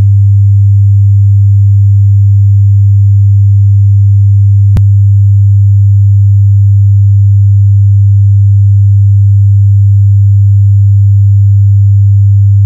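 A steady 0 dB 100 Hz sine-wave test tone, used for setting car amplifier gains, with one brief click about five seconds in.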